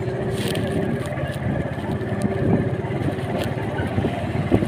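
Motorcycle engine running steadily as the bike rides along, with a fast even throb. A few short knocks and rattles sound over it, the sharpest near the end.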